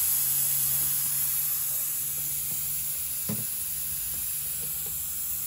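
Air hissing steadily out of a vintage car's tyre valve as the tyre is let down, slowly growing quieter as the pressure drops.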